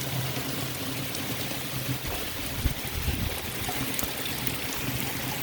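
Heavy rain pouring down, with a steady low hum underneath that sounds like something generating. A single short thump comes about two and a half seconds in.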